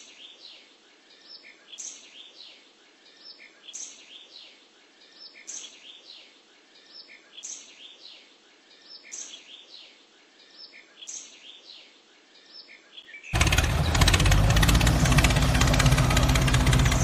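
Bird chirps repeating evenly, one short group of high calls about every two seconds. About thirteen seconds in, a loud, steady engine-like running sound cuts in abruptly.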